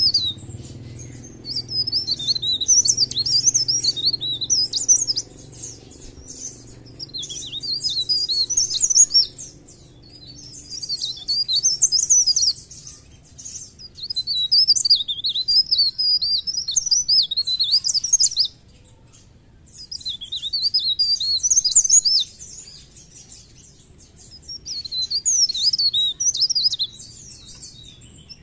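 Mountain leaf warbler (cikrak daun) in full song: rapid, high, twittering phrases a few seconds long, repeated about seven times with short pauses between.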